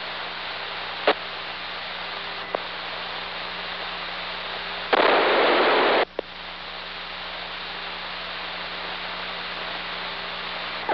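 Steady hiss and hum of the aircraft's radio and intercom audio, with a couple of sharp clicks and a loud burst of static about five seconds in that lasts about a second and cuts off sharply.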